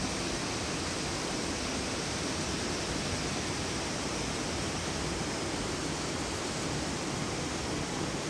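Steady rushing noise of a tall waterfall falling from a great height.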